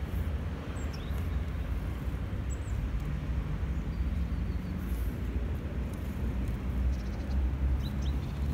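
Steady low outdoor rumble, with a few faint high chirps about a second in and near the end.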